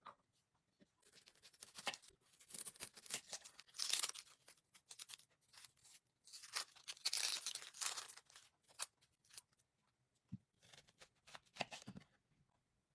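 Hand food preparation: irregular bursts of rustling, rasping noise, each lasting up to about a second, with a few sharp clicks and taps near the end.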